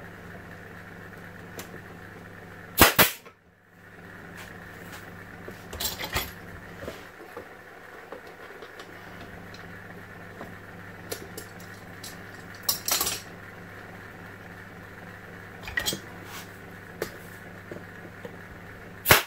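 Nail gun shots into plywood: a Ryobi cordless nailer fires a quick double shot about three seconds in, and a hose-fed pneumatic nailer fires a sharp shot near the end. Smaller clicks and knocks of handling come in between, over a steady low hum.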